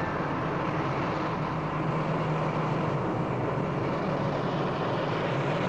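Steady rushing rumble of an Eagle spacecraft's engines, a science-fiction sound effect with a low hum underneath.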